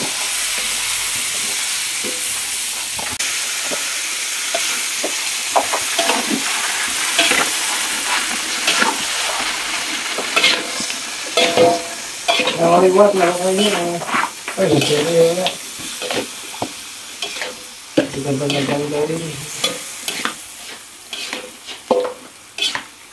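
Pieces of civet meat sizzling in hot oil in a metal wok, steady at first, then stirred with a metal spatula that scrapes and clicks against the pan. A pitched, voice-like sound comes in twice in the second half.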